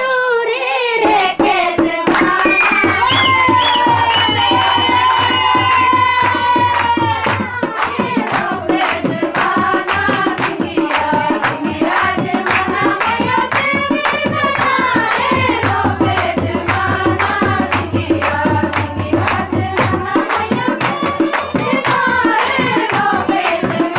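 A person singing a melodic song with long held, bending notes, accompanied by quick, evenly repeated hand-drum beats and a steady low bass tone.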